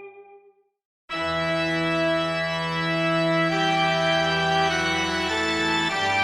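Background music: one piece fades out in the first second and, after a brief gap, a new piece of slow, held organ-like chords starts abruptly, the chord changing every second or so.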